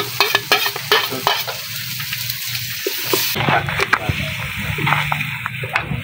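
Chopped shallots and green and red chillies sizzling in melted butter in a steel wok, a steady frying hiss. A metal ladle stirs them, with frequent small scrapes and taps against the wok.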